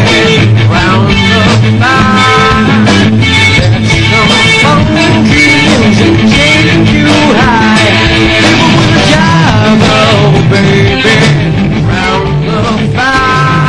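Funk-rock band playing loud and steady: guitar over bass and drums, with a few long held high notes that waver in pitch.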